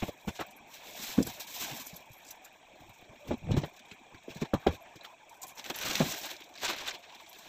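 Irregular knocks, thumps and rustling scuffs of household things being handled and shifted about while a room is rearranged, with the louder knocks about a second in and again around the middle and near the end.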